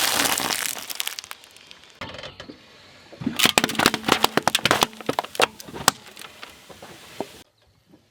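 Things crunching and cracking as they are crushed under a car's tyre: a dense crunch at the start that dies down, then a run of sharp cracks, cut off abruptly near the end.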